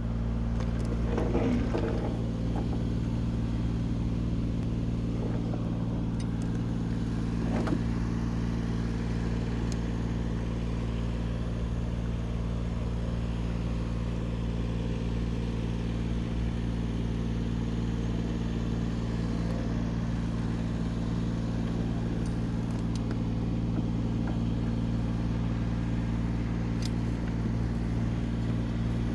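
An engine running steadily at one constant speed, a low, even hum, with two brief knocks, one near the start and one about eight seconds in.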